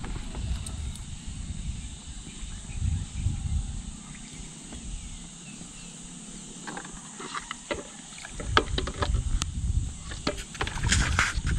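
Lake water sloshing and splashing as a long-handled net is worked through the water among floating water lilies beside a bamboo raft, with a scatter of sharp clicks and knocks that grows busier and loudest near the end. A low uneven rumble sits underneath.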